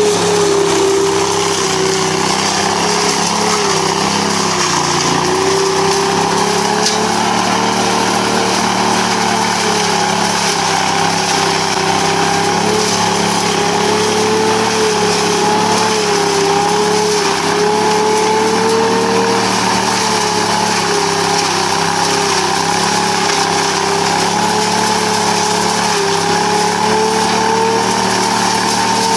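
Truck-mounted leaf vacuum running steadily, its engine and fan giving a constant hum whose pitch wavers slightly, with a rushing noise as leaves are sucked up through the wide intake hose.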